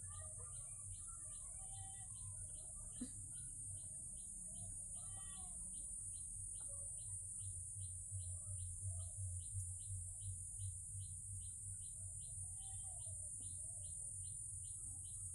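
Regular high chirping, about three chirps a second, keeps an even pace over a steady high hiss and a low hum.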